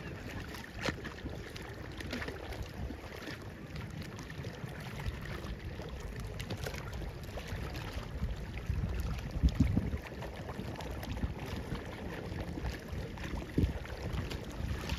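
Wind rumbling on the microphone during a walk outdoors, with scattered light clicks and a few low thumps, the loudest about nine and a half seconds in.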